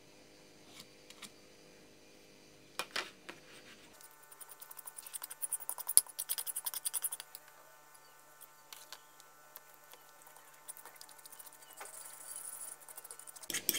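A spoon clicking and scraping in a small dish as a thick mixture of honey, butter, raw egg yolk and baking soda is stirred. A quick run of light ticks lasts a couple of seconds about a third of the way in, with scattered clicks before and after.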